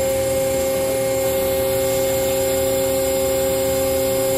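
Hydraulic test bench running steadily under pressure, driving a Hyundai 380LC excavator swing motor. It makes an even, unchanging hum with a steady high whine over it.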